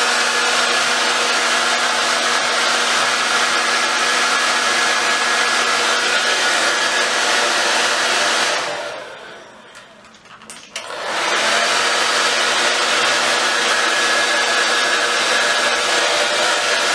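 Hair dryer blowing steadily with a light whine. About halfway through it winds down and is off for a couple of seconds, then it is switched back on with a click and runs on.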